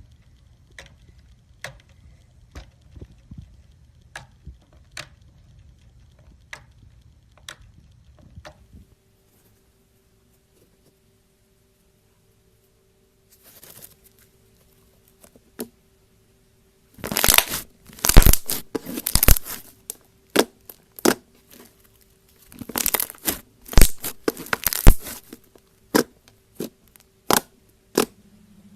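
Slime being squeezed and stretched, giving sharp popping and crackling clicks: a few scattered pops at first, then after a quiet stretch two dense, loud runs of crackling in the second half, with single pops between and after.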